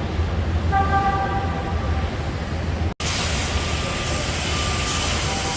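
Car assembly plant floor noise: a steady low machinery hum under a general din, with a short high beep-like tone about a second in. The sound breaks off for an instant about three seconds in, then returns with more hiss and faint short tones.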